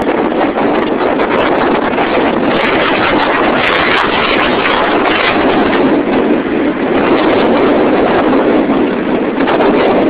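Strong wind rushing over the microphone in a steady loud roar, mixed with road traffic.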